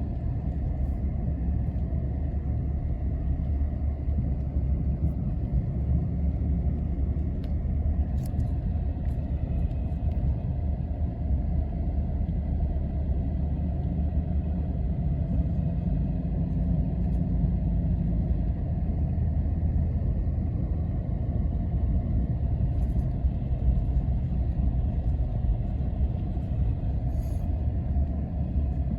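ATV (quad) engine running at a steady speed, a low, even rumble.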